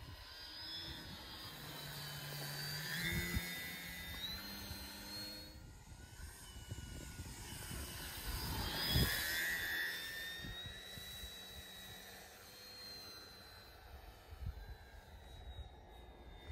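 Electric RC plane's brushless motor (Twisted Hobbys 2814 2050KV) spinning a 12x6 propeller, a whine that shifts in pitch as the plane makes two passes. It swells about three seconds in and again, loudest, about nine seconds in, then fades as the plane flies off.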